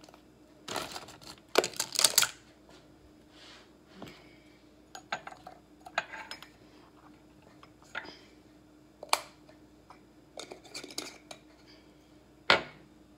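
Plastic spice jars, their lids and a plastic measuring spoon being handled on a countertop: scattered clicks, taps and clinks, with a few louder knocks.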